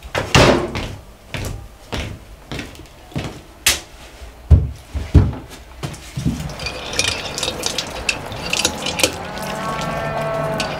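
A wooden door and footsteps on a plank floor, then a few hard knocks of crockery being set down. In the last few seconds, water trickles and drips from a hanging hand-washing dispenser.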